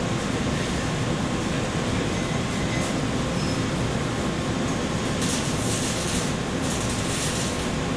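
Welding noise: a steady rushing hiss and rumble, with two stretches of brighter hiss in the second half.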